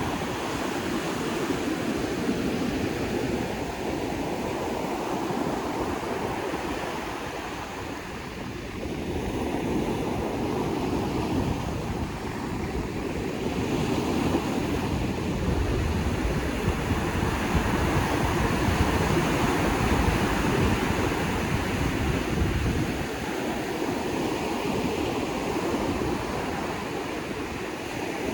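Sea waves breaking on the shore in a strong wind, the surf swelling and easing every few seconds and dipping briefly about eight seconds in. Wind gusts buffet the microphone with a low rumble.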